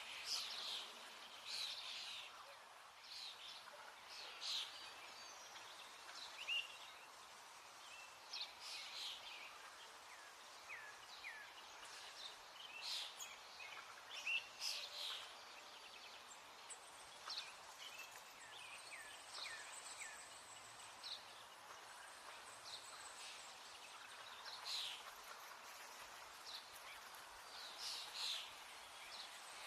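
Birds chirping: many short, high chirps and quick whistles, scattered irregularly over a faint steady hiss.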